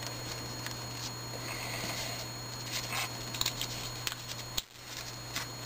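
Paper rustling and crinkling as fingers fold and crease a strip of paper, with a few sharper crinkles in the second half, over a steady low hum.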